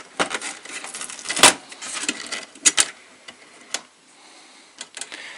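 Irregular sharp clicks and knocks of small plastic and metal parts being handled, about seven in all, with the loudest about one and a half seconds in and a quick pair near the middle.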